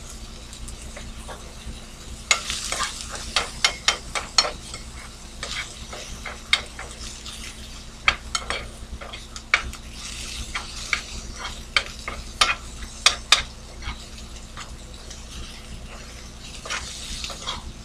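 Sliced onions sizzling in a hot nonstick skillet while a utensil stirs and flips them, knocking and scraping against the pan in irregular clicks.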